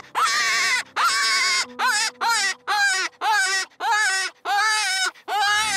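Dog Soldier Legend 2J Low Jack predator hand call blown in a string of about nine short, wavering prey-distress cries with brief breaks between them, to call in a coyote.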